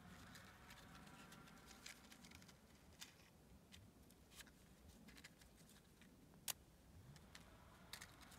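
Near silence with faint, scattered clicks and ticks at an uneven pace, the sharpest single click about six and a half seconds in.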